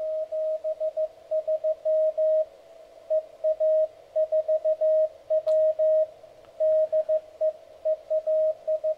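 A received Morse code (CW) signal from an MTR-3B pocket transceiver, heard through a small loudspeaker: a single steady tone keyed on and off in dots and dashes over faint band hiss. It is another amateur station sending, copied as a signal report and a callsign. A brief click comes about halfway through.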